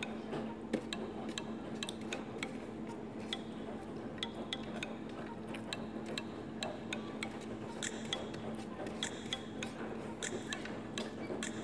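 Close-up eating sounds of chicken being chewed: irregular wet mouth clicks and lip smacks, over a steady low hum.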